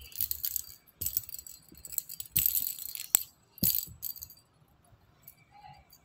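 A hollow plastic toy ball with a bell inside rattling and jingling as a ringneck parakeet pushes and tosses it with its beak, in four short bursts over the first four seconds.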